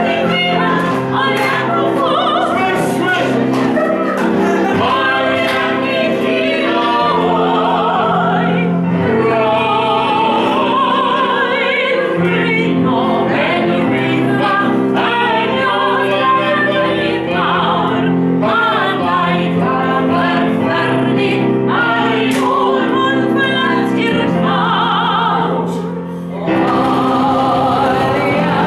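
Singing over steady accompaniment chords, the voice wavering in pitch. The sound dips briefly near the end, then picks up again.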